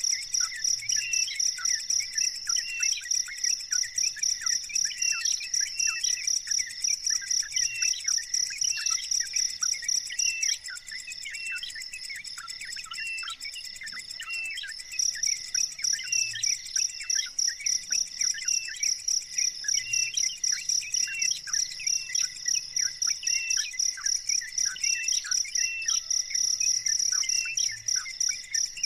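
A cricket-like insect trilling in steady pulses, about three a second, breaking off for a few seconds near the middle, over a bird giving many short, repeated chirps.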